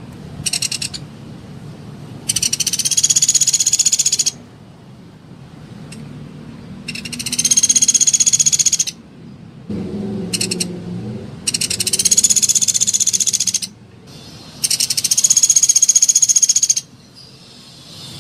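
Sunda pygmy woodpecker (pelatuk beras) calling in rapid, high, buzzy trills: four long trills of about two seconds each, a few seconds apart, with two brief bursts, one just after the start and one about ten seconds in.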